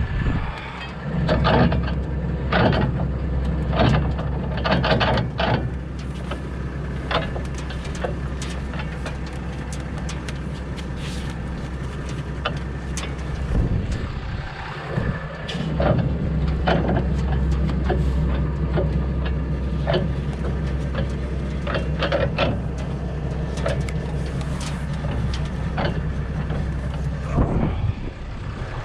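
Case IH Puma 165 tractor engine idling, a steady low hum, with scattered rustles and light knocks from footsteps and handling in the cut grass.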